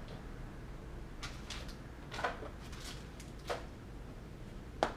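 A few light, separate knocks and clicks from handling boxed computer parts and their packaging, over a low steady room hum.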